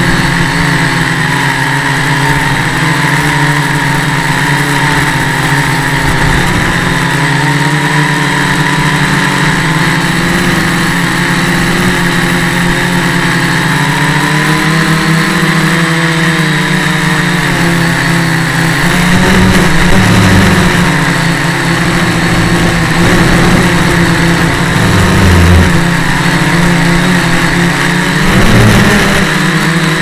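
Small quadcopter's electric motors and propellers whining continuously, the pitch wavering up and down with the throttle over a steady hiss. It surges louder a few times in the second half.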